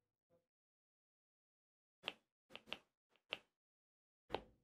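Near silence broken by about five short, sharp ticks of a pen touching the writing surface as words are written, starting about two seconds in.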